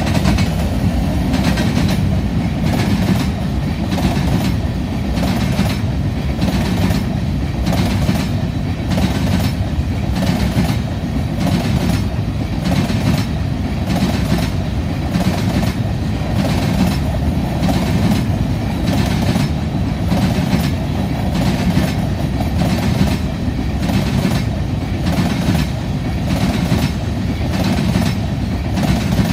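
Covered grain hopper cars of a freight train rolling past, a steady rumble of steel wheels on rail with a regular clickety-clack as the wheels cross rail joints.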